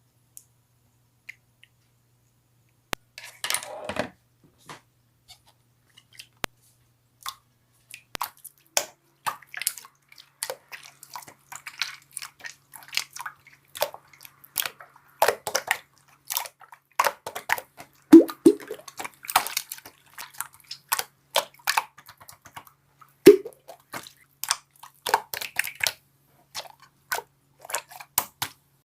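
Clear slime being squeezed and pressed by hand, giving irregular wet clicks and pops. They are sparse at first, with a short squelch about three seconds in, and come thick and near-continuous from about eight seconds in.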